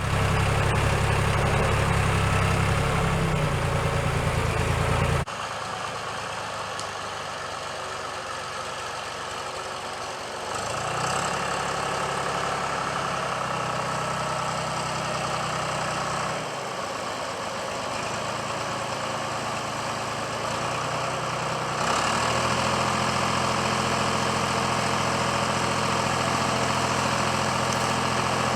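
A 1972 John Deere backhoe's engine running steadily. Its pitch and loudness change abruptly four times, about every five or six seconds.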